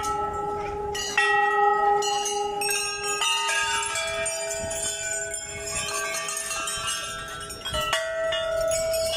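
Hanging brass temple bells struck one after another, each ringing on with a long, steady tone that overlaps the next. The loudest strikes come about a second in and again near the end.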